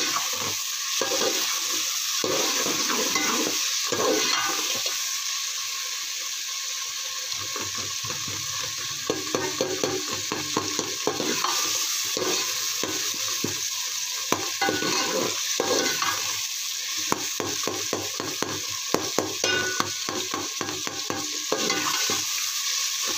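Tomato-and-spice masala sizzling in hot oil in a metal pot while a steel spoon stirs it, with frequent clicks and scrapes of the spoon against the pot. This is the bhuna stage, where the masala is fried until the tomatoes soften and break down.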